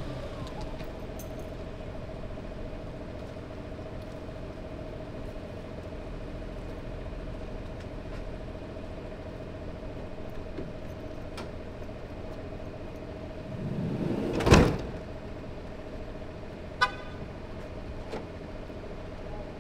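The side sliding door of a police crime-scene van rolls along its track and slams shut with a loud bang about three quarters of the way through, over a steady engine hum. A short, sharp chirp follows a couple of seconds later.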